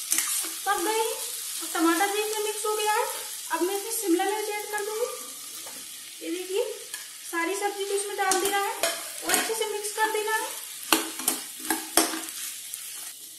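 Metal spoon scraping and stirring diced potatoes in a stainless steel kadai, each stroke a squeaky scrape over a faint sizzle of frying. In the second half, sharp clicks and knocks as chopped capsicum is tipped in from a plate and stirred.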